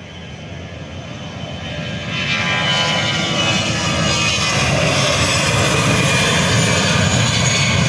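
Airbus A320-214's CFM56 jet engines at takeoff power during the takeoff roll. The sound grows louder over the first two seconds, then holds steady, with a whine of steady tones over the engine noise.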